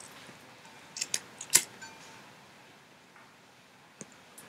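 A cigarette lighter being handled and struck to light a cigarette: a few sharp clicks close together about a second in, then a couple of faint ticks near the end.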